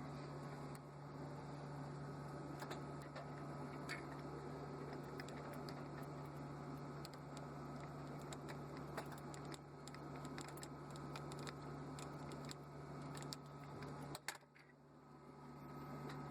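Faint scattered clicks and taps of small metal stove parts being handled, over a steady low hum. Near the end the hum drops out briefly.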